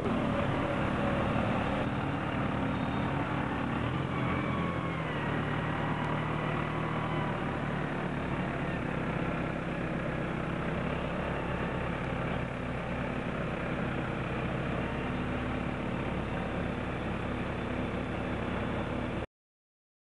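JCB 2CX backhoe loader's diesel engine running steadily at close range, with a whining tone that shifts in pitch in the first few seconds.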